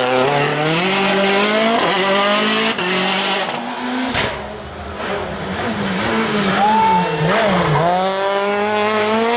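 Rally car engine revving hard at full throttle, its pitch climbing and holding. About halfway through it eases off with a brief dip in loudness, then it revs up again near the end.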